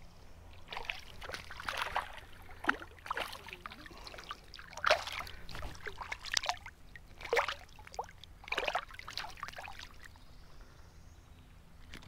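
Water splashing and sloshing at a kayak's side in a string of irregular splashes, which die down about ten seconds in.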